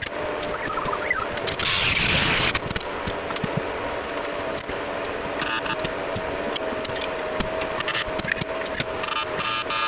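Metalworking noise on a radiator being cut and welded: a power tool runs with a steady hum, with scraping and frequent sharp clicks.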